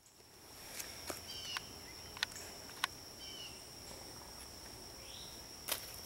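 Faint outdoor woodland ambience: a steady high insect drone with a few short bird chirps, broken by several sharp clicks.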